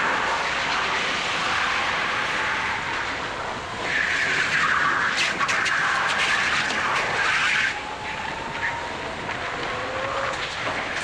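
Go-kart running at race speed, heard from on board: a steady drive note with a faint gliding whine and track noise. From about four seconds in to nearly eight seconds a louder hiss of tyres scrubbing through a corner, with a few sharp clicks.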